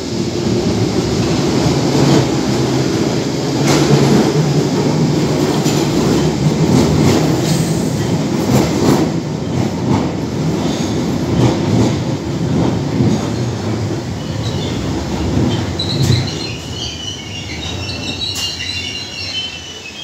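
London Underground 1972 Stock tube train running into the platform, its wheels clicking over the rail joints with a steady rumble. About four seconds before the end its brakes squeal in a run of high tones as it slows to a stop.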